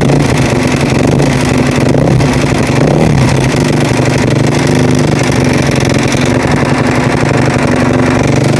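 Husaberg motorcycle engine running steadily at idle, the engine in which its owner hears a strange noise.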